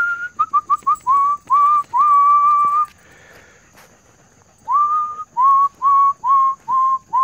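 A person whistling to call dogs: two runs of short whistled notes, each note sliding up onto about the same pitch and each run ending in a longer held note, with a pause of about a second and a half between the runs.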